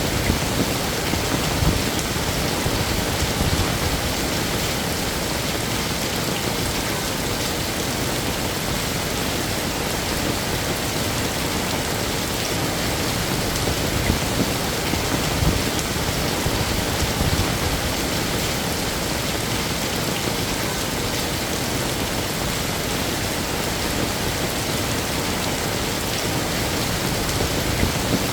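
Heavy rain falling steadily, a dense even hiss of drops with occasional heavier splats.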